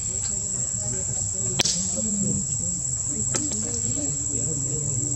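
Steady high-pitched drone of insects calling, with a sharp click about a second and a half in and a fainter one a little after three seconds.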